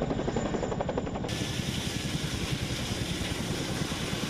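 CH-47 Chinook tandem-rotor helicopter: a steady rapid chop of its rotor blades over turbine and rotor noise. About a second in the sound changes abruptly to the helicopter running on the ground, with the same steady rotor beat.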